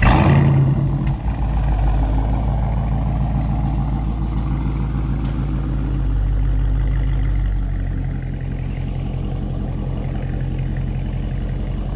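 Dodge Charger Hemi V8 starting up with a loud flare, then running at a steady idle that drops to a lower, steadier idle about eight seconds in.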